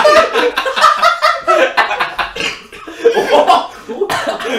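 Several men laughing together, chuckling and snickering, with a few words mixed in.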